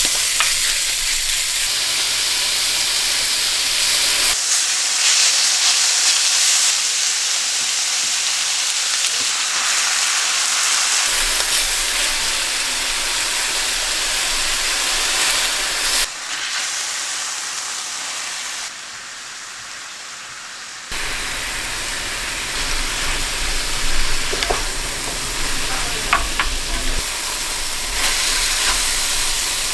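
Food sizzling as it fries in a hot pan, a dense steady hiss that shifts abruptly in loudness several times.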